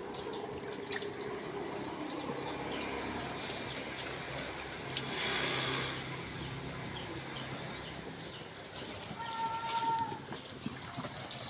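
Water trickling and splashing, with faint high chirps scattered throughout and a short steady pitched tone about nine seconds in.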